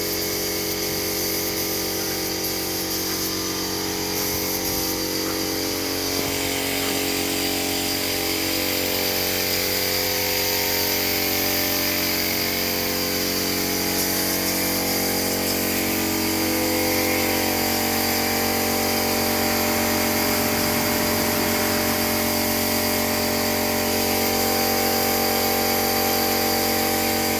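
Compressed-air spray gun hissing steadily as finish is sprayed onto wood, over the continuous hum of the air compressor that feeds it. The hiss grows stronger about six seconds in.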